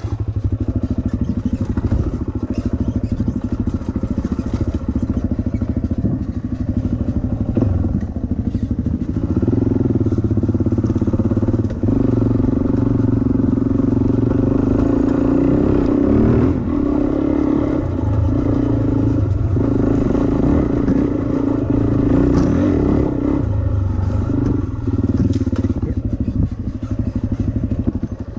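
Suzuki dirt bike's engine running under way on a rough dirt trail, its revs rising and falling with the throttle and strongest through the middle stretch, with clatter from the trail. It drops off near the end as the bike slows.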